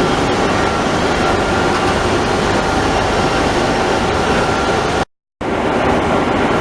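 Dean Smith and Grace CNC lathe running: steady mechanical noise with a faint high whine. The sound breaks off for a moment about five seconds in, then carries on.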